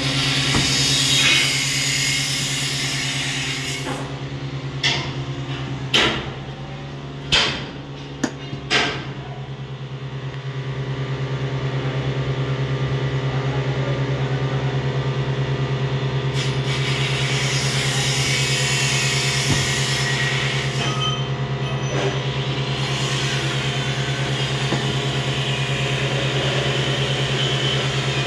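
Steady low machine hum, with five sharp knocks in quick succession between about five and nine seconds in. A hiss comes and goes in the second half.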